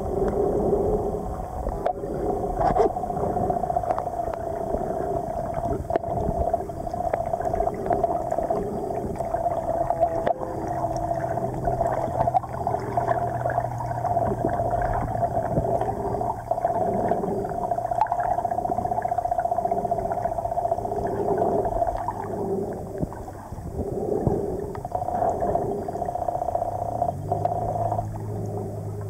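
Muffled underwater sound picked up by a submerged camera on a swimmer: a steady water hum with pulsing swells. A low steady drone comes in about ten seconds in, fades after about twenty seconds, and returns near the end.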